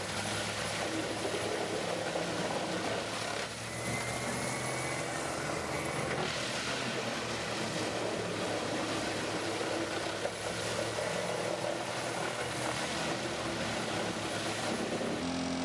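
Morbark 30R XL whole-tree chipper running, its CAT C27 diesel engine giving a steady heavy drone under continuous mechanical noise.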